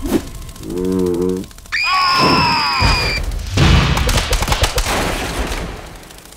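Cartoon characters screaming: a short low wail about a second in, then a high shriek, followed by a burst of rumbling, crackling noise with rapid booms and thuds that fades near the end.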